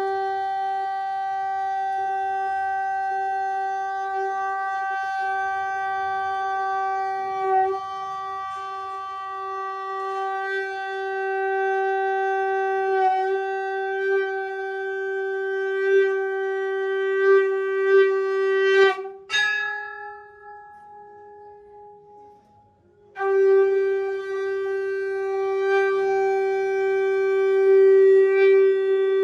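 Conch shell (shankh) blown in one long steady note, breaking off with a sharp click about nineteen seconds in; after a pause of some four seconds a second long blast begins. Blowing the shankh marks the opening of the aarti worship.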